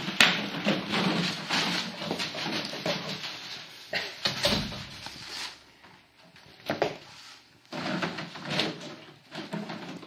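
Empty plastic bottles crinkling and clattering in a plastic kiddie pool as puppies clamber over and nose through them. The sound comes in irregular bursts, with a louder knock about four seconds in.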